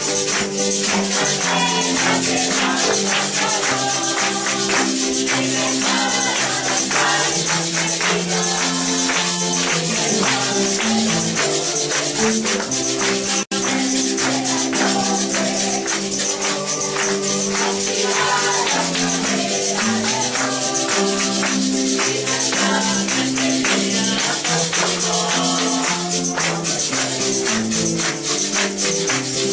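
Congregational worship music: a Spanish-language praise song sung over accompaniment, with a tambourine shaken steadily throughout. The sound drops out for an instant about halfway through.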